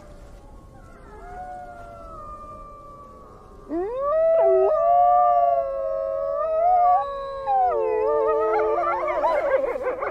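Grey wolves howling. A faint howl comes first, then a loud one rises sharply about four seconds in and is held with a wavering pitch, and near the end several howls overlap in a chorus.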